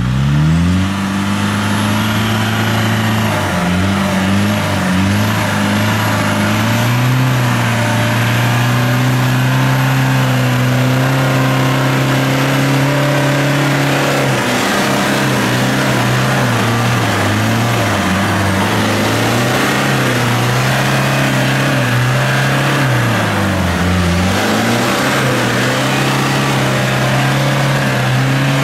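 Land Rover Defender engine revving hard under load in deep mud, its pitch rising and falling over and over with a deep dip about two-thirds of the way through, while the tyres spin and churn mud. A thin high whistle runs above the engine.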